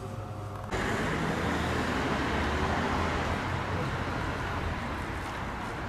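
Street ambience with a steady wash of road traffic noise. It starts abruptly about a second in, after a faint room hum.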